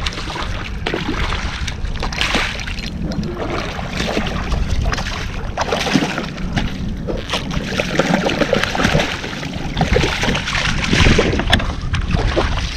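Gusty wind buffeting the microphone, with choppy water splashing and sloshing against a kayak's hull in irregular bursts.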